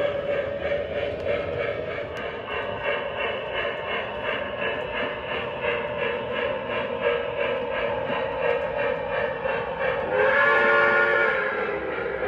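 Onboard Lionel Legacy sound of an O scale PRR T1 Duplex model steam locomotive: rhythmic steam chuffing as the train runs, with a steam whistle blown once for about a second and a half near the end.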